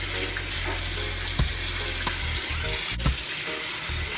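Kitchen tap running steadily onto sea moss in a plastic colander over a stainless steel sink, a continuous hiss of spraying water, while hands turn and rinse the moss.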